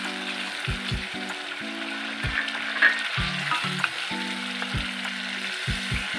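Masala paste sizzling in hot oil in a non-stick kadai, stirred with a wooden spatula. There is a sharp knock of the spatula against the pan about three seconds in.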